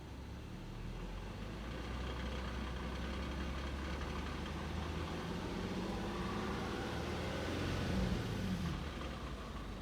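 2011 Infiniti G37X's 3.7-litre V6 engine running, its pitch climbing for a few seconds to a peak about eight seconds in and then dropping back. The car has a rattling noise that the owner can't identify.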